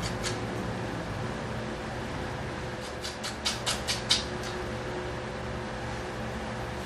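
Several quick scratchy strokes of sandpaper rubbing the end of a small carbon rod, rounding its edges, about three seconds in. Under it a steady hum, like a fan or air conditioner.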